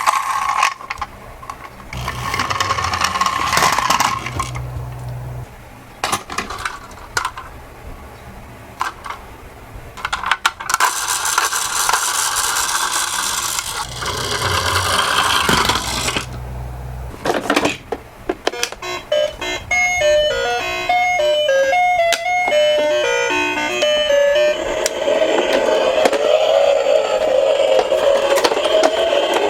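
Toy minicars rolling down a plastic slope in noisy, clattering runs. Later comes a quick series of electronic beeps stepping in pitch, then a wavering toy siren tone.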